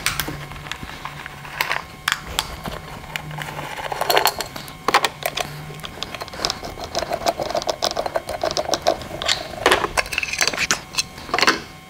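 Metal hand tools and fasteners clicking, clinking and knocking while an engine cover is unscrewed to reach the ignition coils, an irregular run of sharp clicks. A low steady hum runs under the first half and stops about six seconds in.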